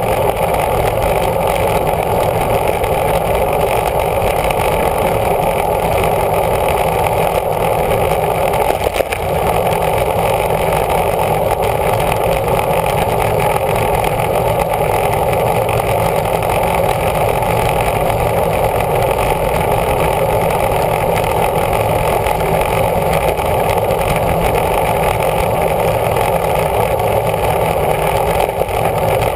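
Steady rush of wind over the microphone of a camera mounted on a road bicycle moving at about 20 to 30 mph, with a brief dip about nine seconds in.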